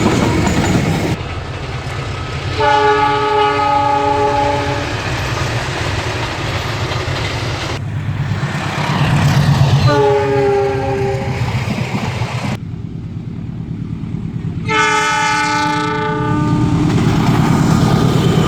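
CC206 diesel locomotive's multi-tone air horn sounding three separate blasts of about two seconds each, the S35 (semboyan 35) horn signal, over the steady rumble of the running train.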